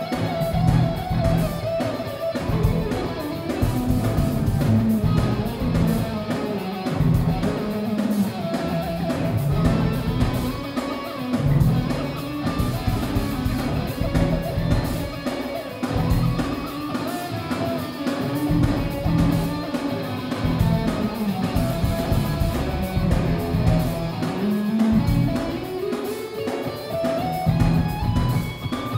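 Live rock band playing loud: electric guitar lead over bass and drums, picked up by a smartphone's microphone so it sounds muffled. Near the end the music climbs in a long rising pitch glide.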